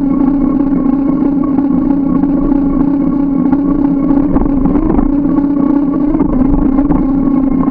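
Steady droning ride noise from a moving bike: one constant low pitch with overtones over a rushing hum, holding the same pitch and level throughout.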